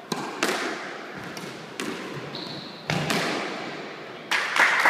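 Squash ball smacking against rackets and the court walls, about four sharp hits with an echo off the enclosed walls. Near the end, clapping and voices break out.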